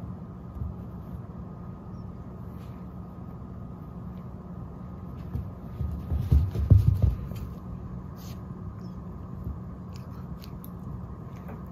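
A cluster of soft, muffled thumps and rustles lasting about a second, a little past the middle, over a steady low hum. A few faint ticks come later.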